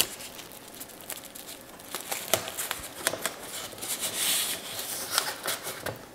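Painter's masking tape and plastic wrap being pressed and smoothed onto a plastic model truck body: soft crinkling and rustling with a few light clicks, and a louder rustle about four seconds in.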